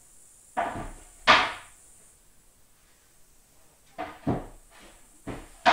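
Sharp knocks or bangs from off-screen in three pairs: two about a second in, two near four seconds, and two near the end. The second bang of the first pair and the last bang are the loudest.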